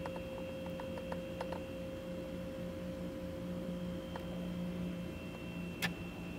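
Quiet room tone: a steady hum with a few faint ticks in the first second and a half, and one sharper click about six seconds in.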